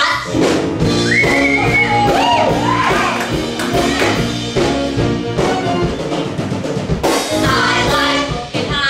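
A musical-theatre song number starting abruptly with a drum-kit beat and bass, with singing sliding up and down in pitch over the band.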